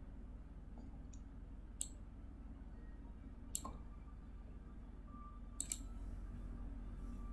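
Computer mouse clicking: single clicks about two seconds in and about halfway, then a quick double click near the end, over a steady low electrical hum.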